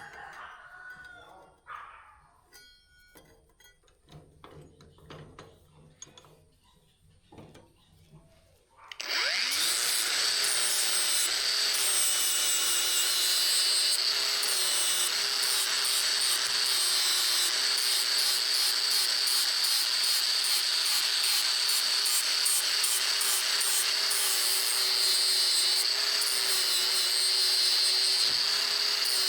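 Scattered light clicks and knocks, then about nine seconds in an electric power tool starts abruptly and runs steadily under load, with a wavering hum and a strong high hiss.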